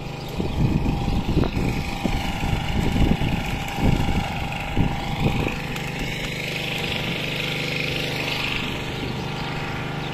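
An engine running steadily with an even low hum, with uneven low rumbling bursts over the first half.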